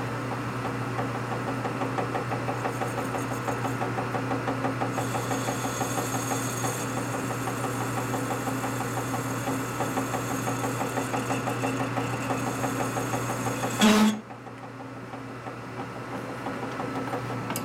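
Metalworking machine tool running steadily with a low hum and a fast, even pulsing. About 14 seconds in there is a short loud clunk, and after it the machine runs on quieter.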